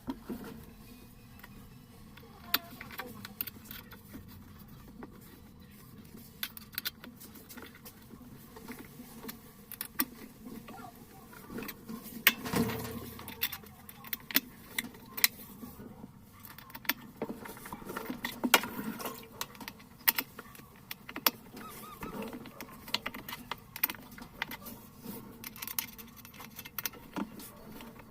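Irregular clicks, clinks and knocks of hand tools and metal and plastic parts being handled while a washing machine is taken apart, with a longer clatter about halfway through.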